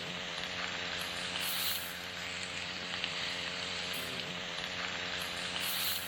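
Italian sausage, peppers and onions sizzling steadily in a pan.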